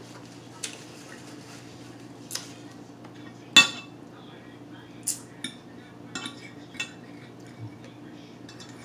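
Cutlery clinking and scraping against a plate, a scattered series of sharp clinks with the loudest about three and a half seconds in, over a steady low hum.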